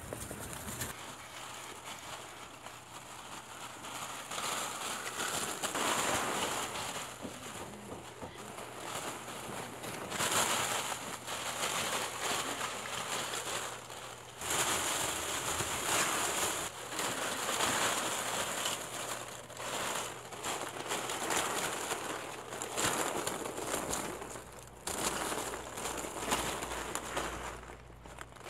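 Masses of plastic ping pong balls clicking and rattling against each other as puppies wade through them, in a dense crackle that swells and fades irregularly.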